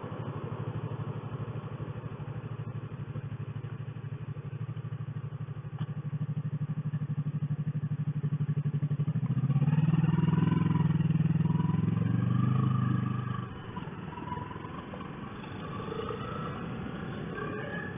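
Yamaha YZF R3's 321 cc parallel-twin engine running as the motorcycle rides along. About ten seconds in it pulls harder, its note climbing, then it drops back to a lighter drone about three and a half seconds later.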